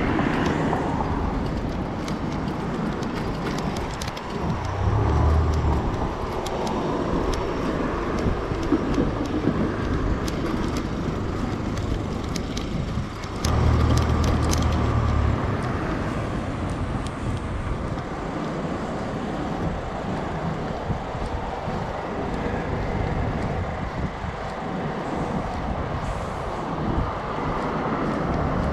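City street traffic noise heard from a moving bicycle, steady throughout, with two louder low rumbles, about five seconds in and again around fourteen seconds.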